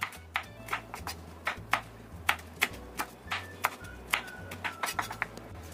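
Knife slicing small red chillies on a wooden cutting board: sharp taps of the blade on the wood, about three or four a second, a little uneven.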